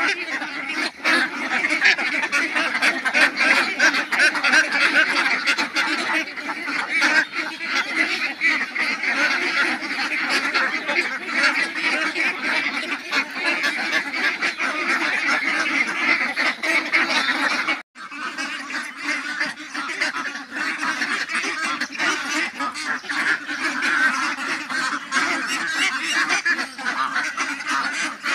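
A large flock of domestic ducks quacking continuously, many calls overlapping into a dense chatter. The sound drops out for an instant about two-thirds of the way through, then carries on.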